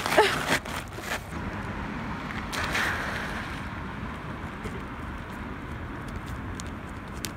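Outdoor traffic noise: a car passing on the road swells up about three seconds in, over a steady rush of wind on the microphone, with a few light clicks in the first second.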